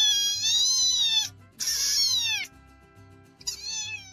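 Cat meowing three times: a long, wavering meow, then a shorter one that falls in pitch, then a brief one near the end, over quiet background music with a steady beat.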